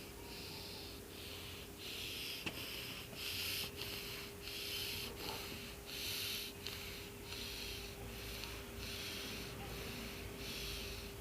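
Cat breathing close to the microphone: a steady run of soft, hissy breaths, about three every two seconds.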